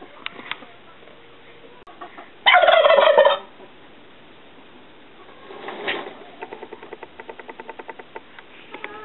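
Male domestic turkey gobbling once in courtship display: a loud, rapid, rattling call about a second long. A softer swelling sound follows near the middle, then a run of soft quick ticks.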